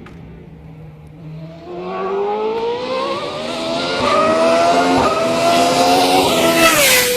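Auto GP single-seater racing car approaching under acceleration, its engine note climbing steadily in pitch and growing louder, then dropping sharply in pitch as it passes near the end.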